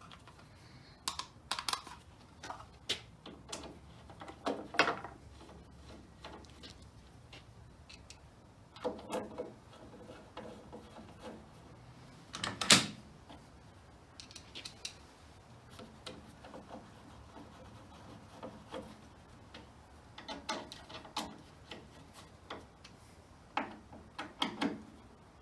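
Scattered clicks, clinks and knocks of metal parts and hand tools as the mortising-chuck cover plate is fitted and fastened onto the jointer-planer's base, with one sharp, louder knock about halfway through.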